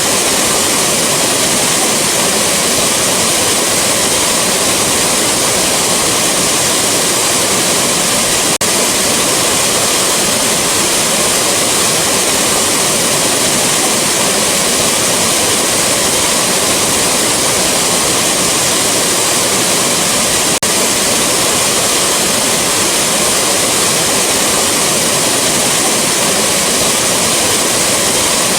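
Waterfall rushing: a steady, dense hiss of falling water that never lets up. Two faint clicks, about twelve seconds apart, break it briefly.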